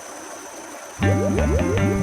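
A faint hiss for about a second, then background music starts, with short notes in a quick, even rhythm.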